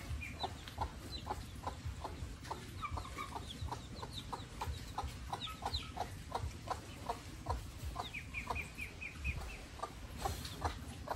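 Chickens clucking in a steady run, about three clucks a second, with higher chick-like peeps over them and a quick string of peeps near the end.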